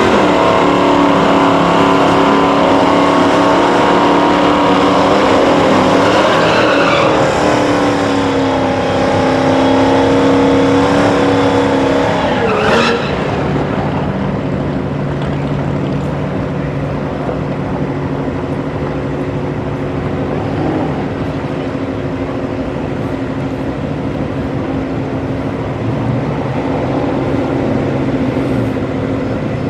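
V8 engines of two drag-racing cars running at the start line. The red Shelby GT500 Mustang revs through a burnout, its rear tyres spinning and squealing, in the first half. After that both engines idle steadily while staging.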